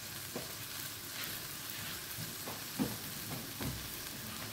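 Pork and pounded chili paste with a little water sizzling in a wok: a steady, even hiss, with a few light knocks in the pan.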